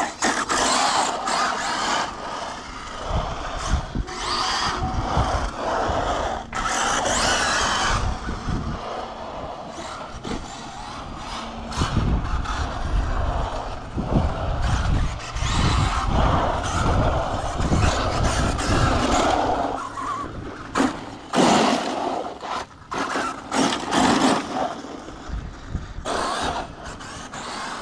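Arrma Mojave 8S brushless electric RC desert truck driving on asphalt: its motor and drivetrain whir and swell and fade with the throttle, with tyre noise on the pavement. Several sharp knocks come in the last third.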